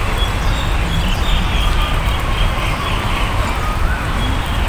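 Birds chirping and calling, short repeated chirps and whistled notes, over a steady low rumble.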